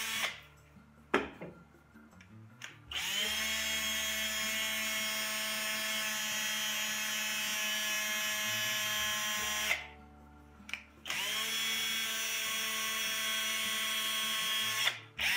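DeWalt cordless drill motor spinning up under the trigger and running free at a steady whine, in three runs: one of about seven seconds, then one of about four seconds, then a short start at the end. Between runs it stops with brief clicks. The revived drill runs normally, taken as a success.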